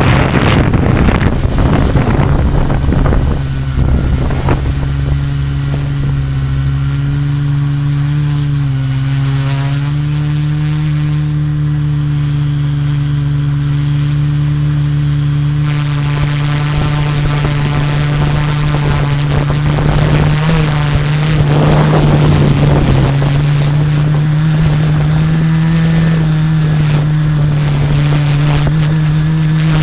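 Multirotor drone's LD Power MT4010 475KV electric motors and 13-inch carbon propellers humming steadily from the onboard camera. The pitch eases up and down slightly as the drone holds its hover. Wind buffets the microphone for the first few seconds.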